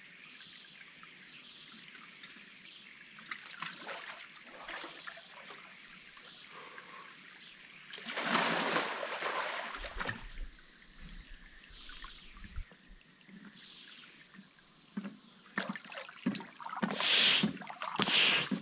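Swimming-pool water trickling faintly, then a loud splash about eight seconds in, and a run of splashing near the end as a person moves through the pool.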